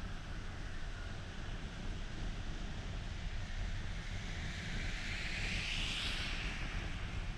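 Steady low road rumble and tyre noise of a car driving on wet pavement, with a rising and fading hiss of tyres on the wet road about five to six seconds in as an oncoming car passes.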